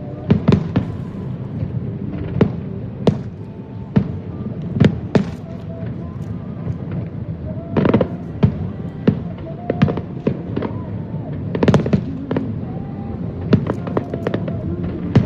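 Fireworks display: aerial shells bursting in sharp bangs at irregular intervals, about one or two a second, with the loudest bursts about eight and twelve seconds in.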